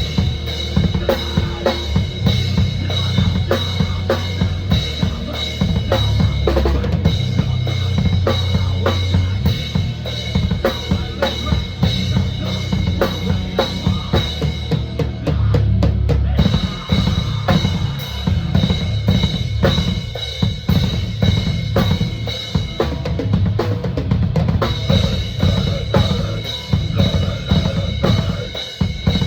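Drum kit played fast and hard in deathcore style, with dense rapid bass-drum strokes under snare and cymbals.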